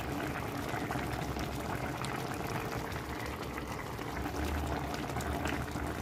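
Fish stew of tomato, onion and peppers boiling in a wide pan: a steady bubbling with many small pops.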